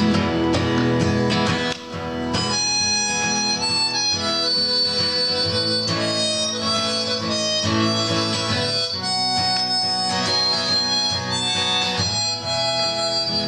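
Harmonica playing an instrumental break over a strummed acoustic guitar. The harmonica comes in about two seconds in, after a few bars of guitar alone.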